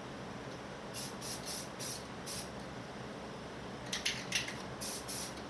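Rust-Oleum camo spray paint in army green hissing out of an aerosol can in short bursts through a stencil: about five quick puffs in the first half, then a tighter cluster of sprays near the end.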